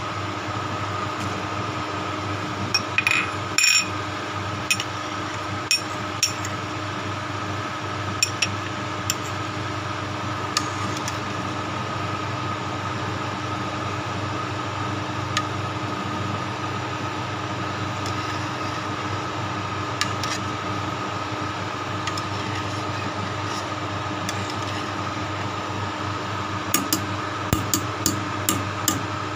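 A metal spoon clinking against a stainless steel soup pot, a few sharp clinks scattered through and a quick run of them near the end, over a steady mechanical hum.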